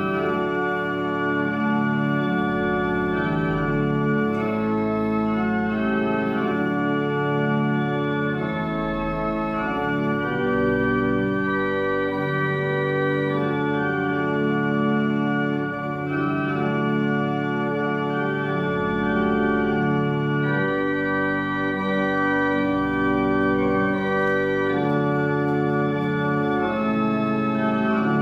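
Church organ playing slow music of sustained chords that change every second or two.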